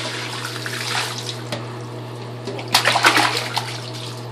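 Water poured from a plastic jug into bath water, running steadily, then a short burst of loud splashing about three seconds in as a baby slaps the water with its hands.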